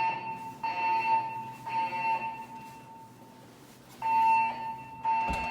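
Siemens MXL-V fire alarm speakers sounding the temporal (Code-3) evacuation tone: three steady, high-pitched beeps of about a second each. After a pause of about a second and a half, the next set of three begins.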